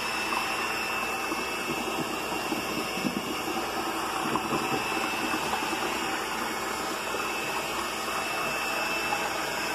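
Corded electric hand mixer running steadily, its beaters churning through a pot of mashed bananas to beat them down fine, with a faint steady high whine from the motor.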